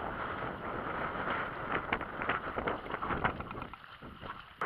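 Wind buffeting the microphone, with water lapping against the boat's hull. About a second and a half in, a run of short knocks and slaps starts, then things go quieter near the end.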